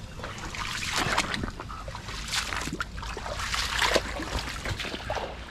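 Shallow creek water trickling among mangrove roots, with irregular splashes through it.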